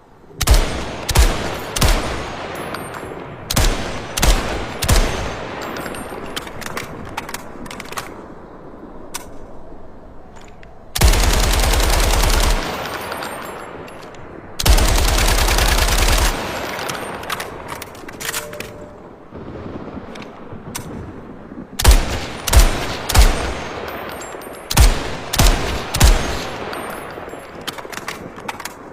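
AK-103 assault rifle (7.62×39mm) firing. Short strings of shots come early on and again in the last third, with two long full-automatic bursts of about a second and a half each around the middle. Every shot trails off in a long echo.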